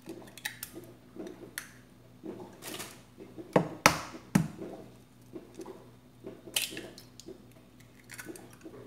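Two eggs cracked into a small glass bowl: scattered sharp taps and clicks of eggshell on the glass and shells breaking apart, the loudest a little before halfway through.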